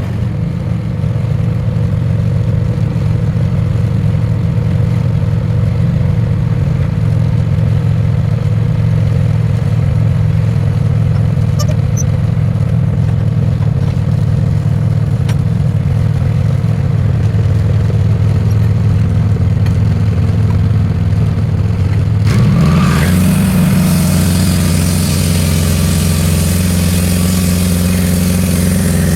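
Wood-Mizer band sawmill's engine running steadily. About three-quarters of the way through, its note shifts and a hiss grows louder over it.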